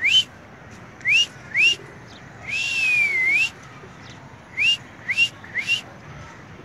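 A person whistling in short, quick rising chirps, in twos and threes, with one longer whistle that dips and then rises again about three seconds in.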